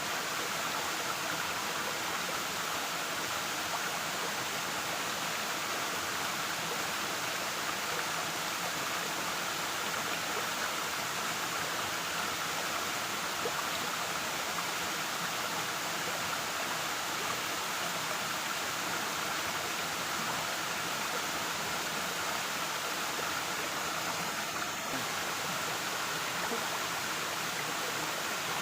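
Waterfall pouring steadily, an even rushing of falling water that does not change.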